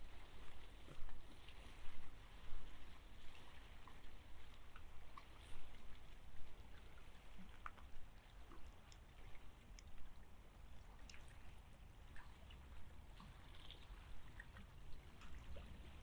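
Steady rain falling, with many scattered close drops ticking.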